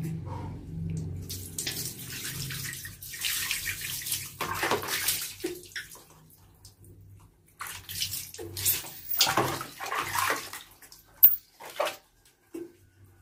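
Water splashing and dripping as a newborn monkey is washed by hand over a plastic basin, in irregular splashes with a quieter stretch midway. A single sharp clack about eleven seconds in.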